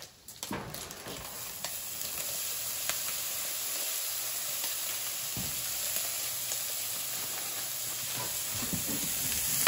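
Bacon pieces sizzling in hot oil in a frying pan as peas are tipped in. The sizzle starts about half a second in, holds steady and grows slightly louder near the end.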